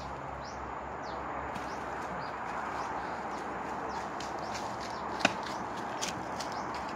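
Steady outdoor background hiss with a bird's short repeated chirps, about two a second, that stop about a second and a half in; two sharp knocks come around five and six seconds in.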